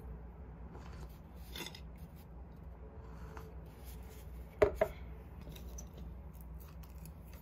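Paper coffee cup set down on a wooden table: two quick knocks about four and a half seconds in, with a few faint handling clicks over a low, steady room hum.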